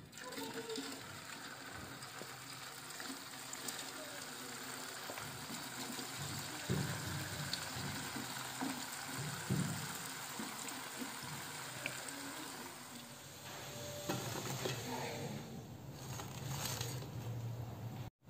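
Raw potato sticks frying in hot oil in a stainless steel pot, a steady sizzle and bubbling. There are a couple of short soft knocks midway.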